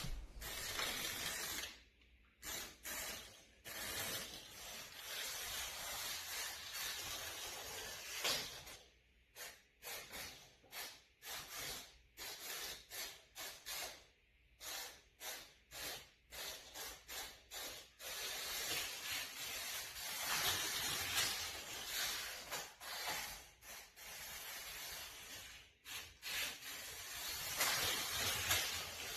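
A small 1:64-scale Hot Wheels RC remote-control car running, its tiny electric motor and tyres making a hissing whir. The whir comes in many short bursts as the throttle is blipped on and off, with a few longer steady runs.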